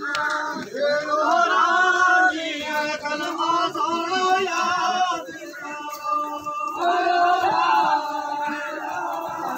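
A group of voices singing a Gojri wedding song together in long, held phrases, with a short break in the middle.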